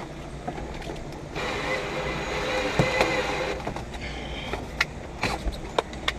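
Small electric power tool running steadily for about two seconds, with scattered clicks and knocks around it.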